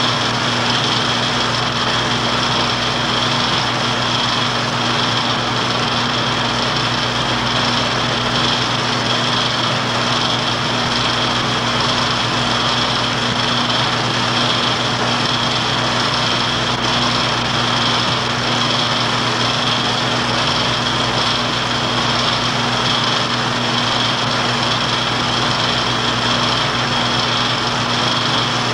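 Film projector running: a steady mechanical whirr with a low hum and a thin high whine, unchanging throughout.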